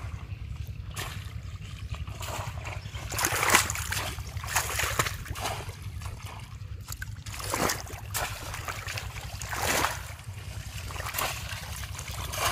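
Shallow muddy pond water splashing and sloshing as a bamboo polo fish trap is plunged into it, in several irregular splashes, the loudest about three and a half seconds in. A steady low hum runs underneath.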